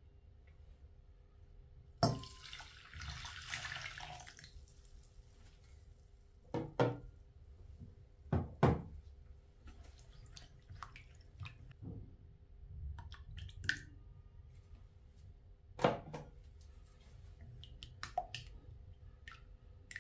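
Dough ingredients being handled in a ceramic mixing bowl. About two seconds in there is a sharp knock, then a couple of seconds of pouring hiss into the bowl. After that come scattered knocks and light clicks from a silicone spatula and the bowl, with one sharp knock near the end.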